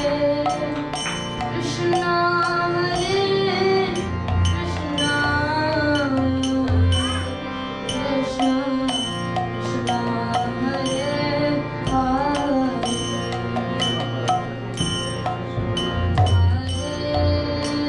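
Kirtan music: a voice sings devotional phrases over a steady held drone, with regular sharp percussion strikes and low drum beats keeping time.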